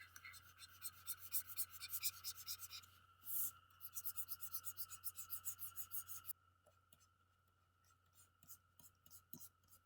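Rapid, even scratching or rubbing strokes, about four or five a second, with a brief louder rush about three seconds in; the strokes stop about six seconds in, leaving only faint scattered ticks over a steady low hum.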